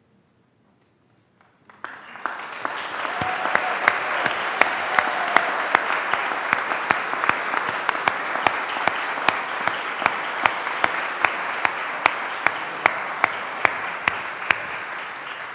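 Congregation applauding, starting about two seconds in and dying down near the end, with one nearby clapper standing out in sharp, evenly spaced claps.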